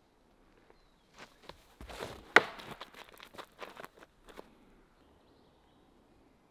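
Footsteps scuffing on gravelly asphalt during a disc golfer's tee-off, an irregular run of short scrapes and steps with one sharp, louder snap about two and a half seconds in.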